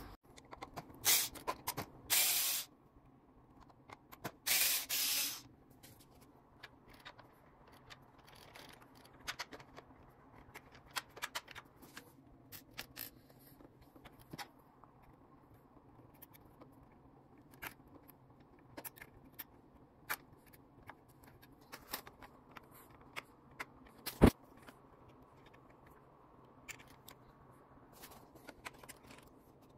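Three short hissing bursts of blown air in the first six seconds, the second and third each lasting about half a second to a second. They are followed by faint, scattered clicks and rubbing of plastic parts being handled, with one sharper click about 24 seconds in.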